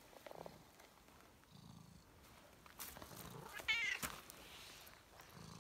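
Calico cat purring in faint low pulses that come and go every second or two, with one short, wavering meow a little before four seconds in, the loudest sound.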